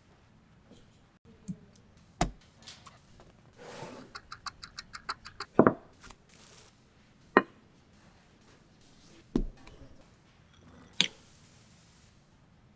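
Kitchen handling sounds from preparing dough: a few sharp knocks and clicks of utensils or a bowl against the work surface, and near the middle a quick run of about ten light ticks.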